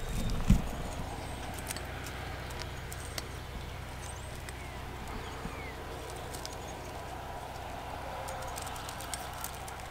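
A bundle of plastic zip ties clicking and rattling as they are handled, with a thump about half a second in, over a steady background hiss.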